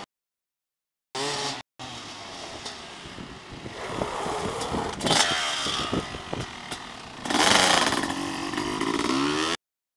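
Dirt bike engine revving as the bike rides up the street, growing louder as it approaches and loudest about three quarters of the way in as it comes close. The audio drops out completely for about the first second and again just before the end.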